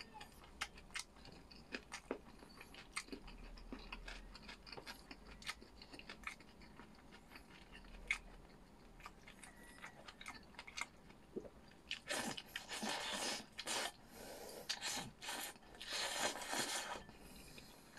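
A person chewing food close to the microphone, with scattered small mouth clicks. From about twelve seconds in come several louder noisy stretches of eating sounds lasting a few seconds.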